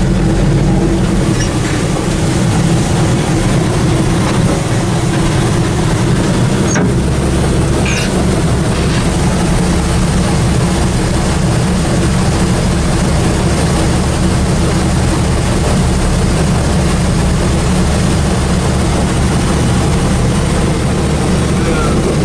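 Allis-Chalmers Gleaner combine's diesel engine and machinery running steadily, with a shift in the low engine tone about seven seconds in and a couple of faint clicks around then.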